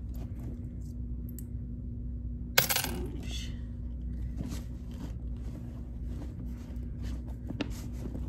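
Loose coins clink once, sharply and with a brief ring, about two and a half seconds in, amid faint rustling and small clicks of a hand rummaging through a canvas handbag. A steady low hum runs underneath.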